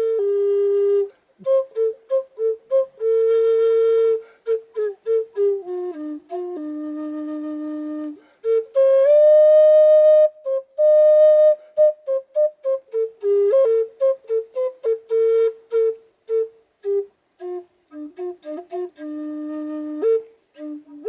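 Native American flute played solo: a slow melody that alternates long held notes with runs of quick short notes, moving between low and higher pitches, with brief gaps between phrases.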